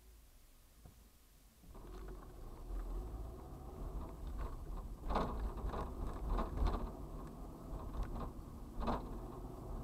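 Vehicle cabin noise: quiet at first, then engine and road rumble rises about two seconds in as the vehicle pulls away from a stop, with several sharp knocks or rattles in the second half.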